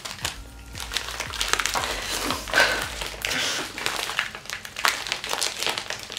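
A Priority Mail mailer envelope crinkling and rustling in uneven bursts with sharp crackles as it is tugged and pulled at by hand to get it open.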